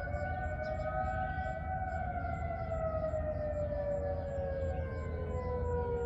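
Several distant outdoor warning sirens, a mix of Federal Signal and Whelen units, sound at once during a test. Their overlapping tones slowly fall in pitch, over a low steady rumble.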